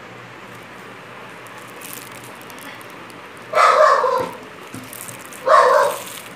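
A dog barks twice, once about three and a half seconds in and again about two seconds later, each bark loud and short.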